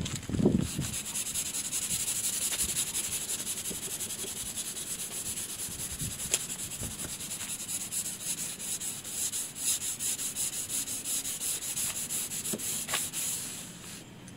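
Sandpaper rubbed by hand in quick back-and-forth strokes over the faded painted stripe on a motorhome's side wall, scuffing it ready for repainting. A low thump right at the start; the sanding stops about a second before the end.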